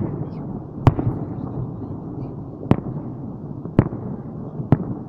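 Fireworks display: aerial shells bursting with four sharp bangs roughly a second apart, over a continuous low rumble of other bursts.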